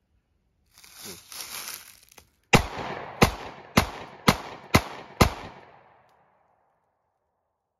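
Taurus GX4 9mm pistol firing Hornady Critical Defense hollow-point rounds: six sharp shots over about three seconds, each ringing on briefly. A second or so of quieter noise comes before the first shot.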